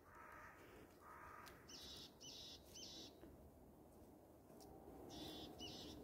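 Near silence with faint, short, high bird calls: three in quick succession about two seconds in and two more near the end, typical of tits. Two fainter, lower calls come at the start.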